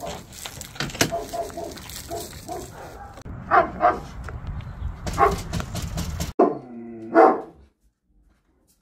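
Dogs barking a few times, each bark loud and short, with low indistinct voices before them. The sound cuts off abruptly near the end.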